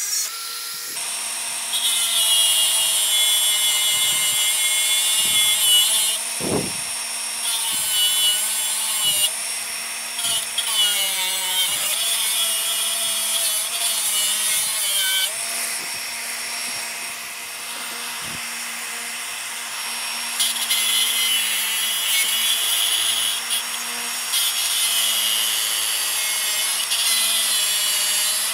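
Hilti AG 4S-A22 22-volt brushless cordless angle grinder grinding welds off a steel tube: a harsh, hissing grind over the motor's steady whine, swelling and easing in stretches as the wheel is pressed in and let off.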